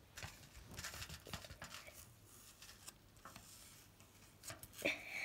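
Faint scratching and light ticks of a small scoop and fingertips digging and pressing pink moulding sand in a small plastic pot, with a brief louder sound near the end.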